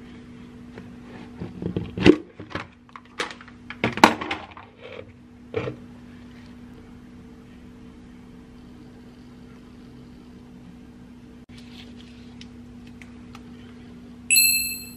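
Plastic salad spinner being handled: a cluster of sharp plastic clacks and knocks in the first few seconds as it is opened and the basket of spun lettuce is taken out, over a steady low hum. Near the end, a short electronic beep.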